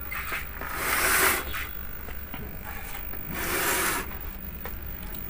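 Two brief rubbing, scraping noises, one about a second in and one at about three and a half seconds, over a steady low hum.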